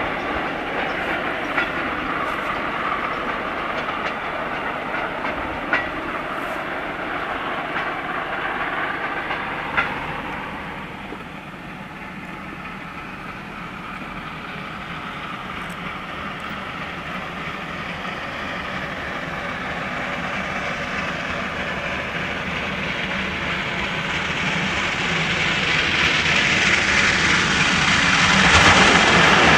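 Freight train of loaded hopper wagons rolling along, wheels clattering over the rail joints with a few sharp clicks, fading after about ten seconds. Then a class 44 three-cylinder 2-10-0 steam locomotive approaches at the head of a train, its working exhaust and running noise swelling steadily louder toward the end.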